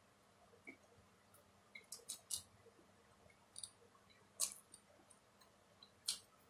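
Faint wet mouth clicks and smacks of someone chewing a mouthful of Mi goreng instant noodles: a dozen or so short, sharp clicks, the loudest about four and a half and six seconds in.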